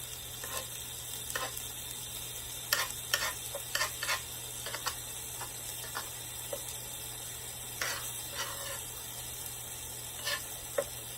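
T-bone steak sizzling as it fries, with scattered clicks and scrapes of a utensil against the pan, a cluster of them a few seconds in and a few more later on.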